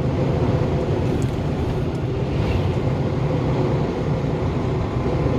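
Steady drone of a truck's engine and tyre noise heard from inside the cab while driving at an even speed, with a low hum and a fainter higher tone held throughout.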